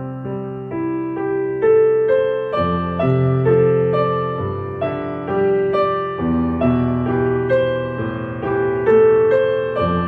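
Calm, slow piano music: a gently played melody of single notes over long held low bass notes that change every couple of seconds.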